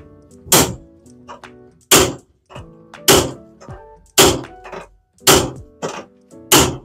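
Six heavy hammer blows on the wrecked Subaru's body metal, evenly spaced about one a second, dull knocks rather than ringing clangs. Background music plays underneath.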